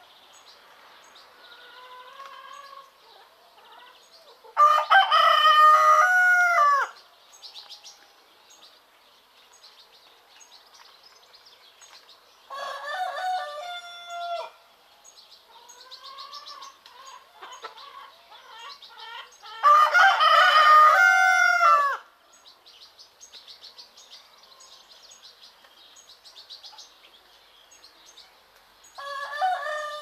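Roosters crowing, four long crows about seven to eight seconds apart, one of them fainter. Small birds chirp faintly in the gaps.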